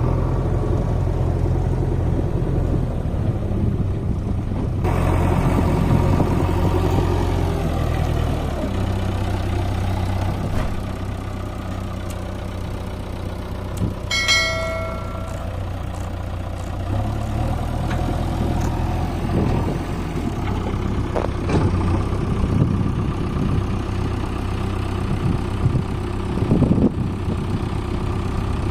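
Diesel engine of a backhoe loader running steadily under varying load while it loads mud. About halfway through comes a single ringing metallic clang, with scattered knocks later.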